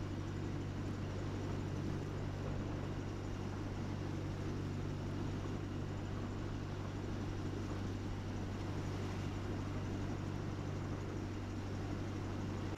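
Small tugboat's engine running steadily under way, a constant low drone, with the rush of water and wind along the hull.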